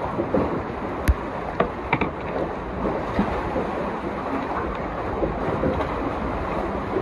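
Wind buffeting the microphone, a steady low rumbling rush, with a sharp click about a second in and two lighter knocks soon after.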